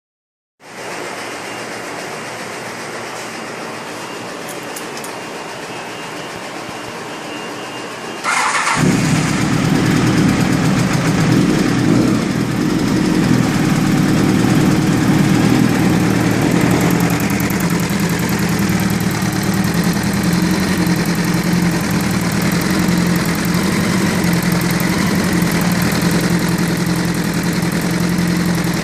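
Honda CBR1000F inline-four motorcycle engine started after a steady hiss: a brief crank about eight seconds in, then the engine catches and idles steadily, with the mechanical noise the owner presents as timing chain noise.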